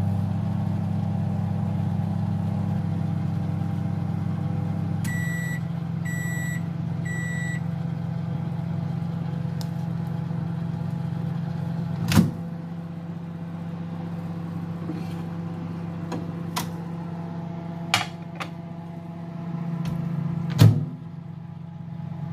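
Commercial microwave oven running with a steady hum. About five seconds in the hum drops and it beeps three times, a second apart, signalling the end of the heating cycle, while a lower fan hum keeps going. About twelve seconds in the door is pulled open with a sharp clunk, and a couple more sharp knocks come near the end.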